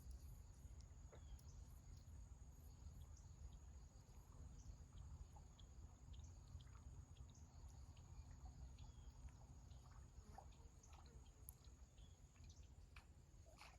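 Near silence: a faint, steady high-pitched insect drone over a low rumble, with scattered faint ticks and short chirps.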